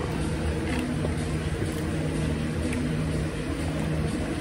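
Steady low mechanical hum of a machine running.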